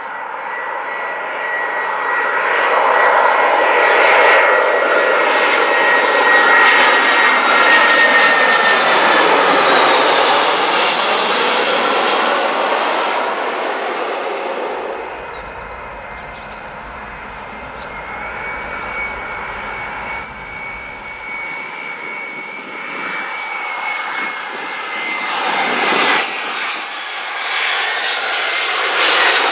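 Jet airliners passing low overhead on landing approach: the engines' whine and rushing noise build up and the whine dips in pitch as the first jet goes over, then fade. After a quieter spell, a second jet's whine and rush grow louder near the end.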